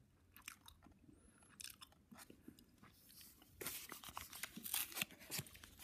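Paper wrapper of a chocolate bar being handled and unfolded: faint scattered crinkles at first, growing denser and louder about three and a half seconds in.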